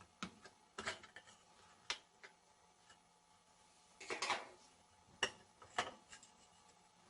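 A small screwdriver prying the dial off a washing machine's timer: scattered light clicks and scrapes of metal on plastic, with a longer scrape about four seconds in.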